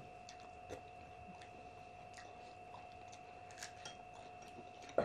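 Close-up chewing of food, with faint scattered mouth clicks and smacks, over a steady high background whine.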